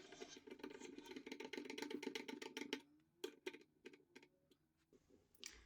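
Faint rapid clicking and tapping, dense for the first three seconds, then a few scattered clicks.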